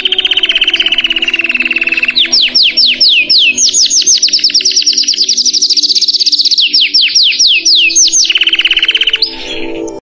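Domestic canary singing one long, loud song: a fast rolling trill that sinks slowly in pitch, then a run of quick downward-sweeping whistles, a high rapid trill, more down-sweeps and a lower trill. The song stops about nine seconds in.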